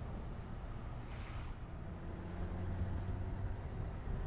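Moving car's steady engine and road rumble, with a low engine hum that grows a little louder about halfway through.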